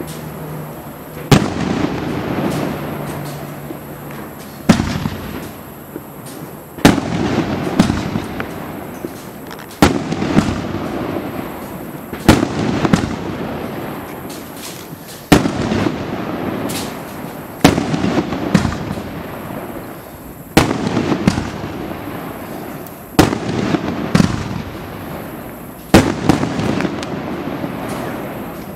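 Consumer fireworks battery, a 25-shot cake, firing shell after shell. About a dozen sharp bangs come two to three seconds apart, each followed by a couple of seconds of crackling that fades away.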